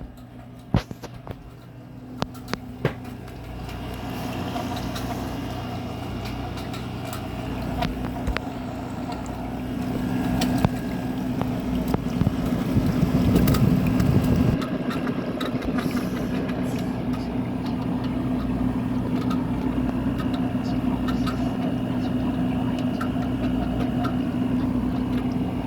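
GE 6,000 BTU wall air conditioner running: a steady compressor hum under the rush of its fan, with a few sharp clicks in the first seconds and a louder rushing stretch about halfway through. The unit is faulty: its fan is spitting water and its coils are freezing up.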